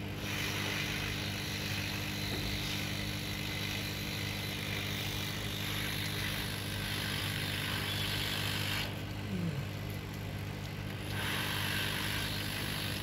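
Steady hiss over a low hum from a hot-air rework tool blowing on a projector main board to desolder a chip. The hiss drops away for about two seconds near the end, then returns.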